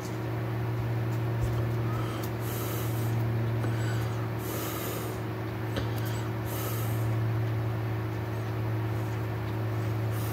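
A steady low hum with a person's breaths, short hissy in-and-out breaths roughly every two seconds.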